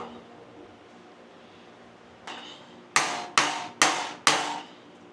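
A hammer striking steel: one light tap about two seconds in, then four hard blows a little under half a second apart, each ringing on briefly.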